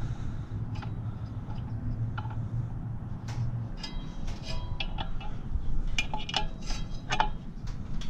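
Scattered light metallic clicks and clinks of a tool against the steel hub and blades of a blower wheel and its sheet-metal housing while the wheel's set screw is tightened, with a few brief ringing tones in the second half.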